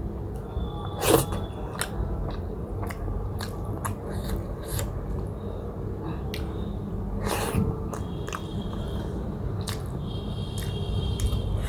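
Close-up mouth sounds of a person chewing buff momo dumplings: wet smacks and sharp clicks at irregular intervals, a louder one about a second in and another around seven seconds.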